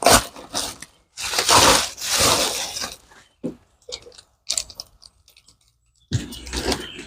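Cardboard box being torn open and handled: a long crunching, ripping stretch, then scattered crinkles and clicks, and another burst of rustling near the end.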